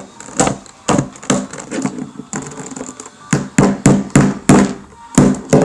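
Small hammer tapping a plastic Rubik's cube piece back into place: a dozen or so sharp knocks, sparse at first and coming faster from about three seconds in.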